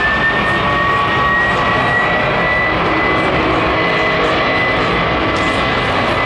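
Airbus A310-304F freighter's twin turbofan engines at take-off power on the take-off roll: loud, steady jet noise with a high whine that rises slowly in pitch for the first couple of seconds, then holds.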